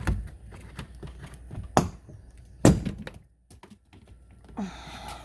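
Knocks and cracks of a hard plastic hatch trim panel being worked loose from its clips, three sharp ones in the first three seconds, then a short scraping rustle near the end.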